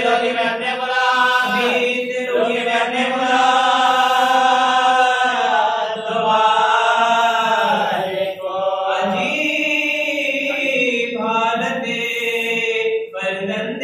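A solo male voice chanting devotional verse from a book in majlis-style elegy recitation, unaccompanied, through a microphone. It holds long notes that waver and slide in pitch, with short breaks for breath about halfway through and near the end.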